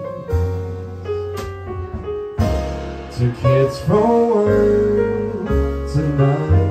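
Live jazz trio playing a slow ballad: a vocalist singing over grand piano and upright double bass.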